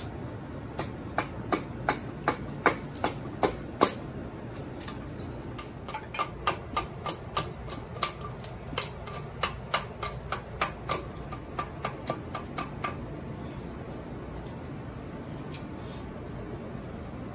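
Husqvarna carpenter's axe chopping a scrap-pine spoon blank on a chopping block: quick, sharp strikes about three a second, in two runs with a pause of about two seconds between them, stopping a little past two-thirds of the way through.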